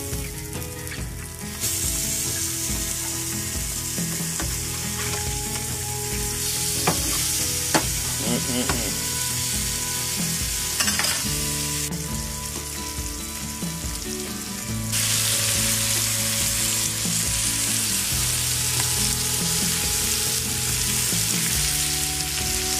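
Pompano fillets sizzling in butter in a nonstick frying pan, a dense steady hiss that grows louder about fifteen seconds in. A few brief clicks sound in the middle.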